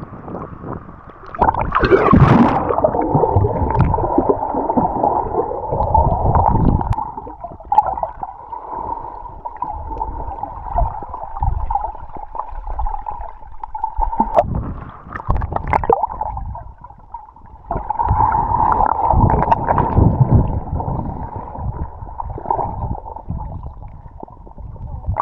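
Sea water sloshing and gurgling right at a camera's microphone, heard muffled, as from a camera held at or under the surface while swimming. It comes in uneven surges with low thumps and a steady whine under it.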